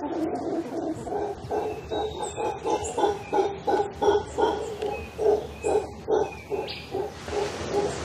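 Howler monkeys calling in a rhythmic run of grunting pulses, about three a second.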